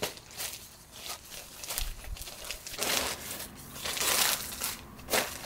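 Thin plastic rain poncho crinkling as it is spread out and smoothed on the ground and a dog settles onto it: a run of irregular rustles, loudest about three and four seconds in.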